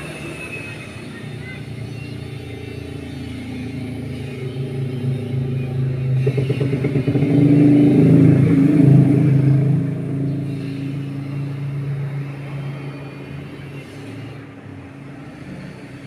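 A motor vehicle engine passes by, growing louder to a peak about halfway through and then fading away.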